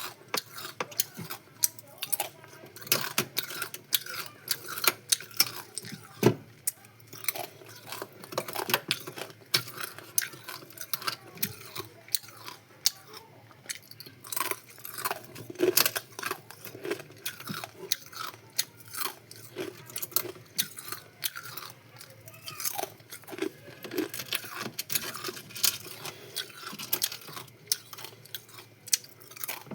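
Ice cubes being crunched and chewed between the teeth: a steady run of sharp, irregular crunches, several a second.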